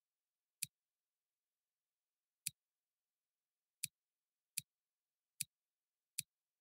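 Computer mouse button clicking, six sharp single clicks at uneven intervals, the last four coming faster, under a second apart.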